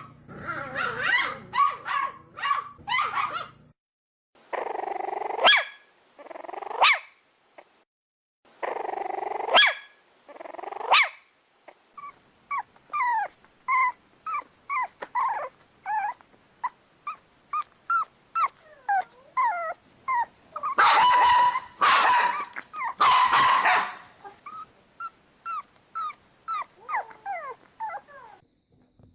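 Puppies barking and yipping in a string of short clips: first a quick run of yaps, then a few single barks, then a long series of short, high yips and whines that slide in pitch, with a burst of louder barking about two thirds of the way through.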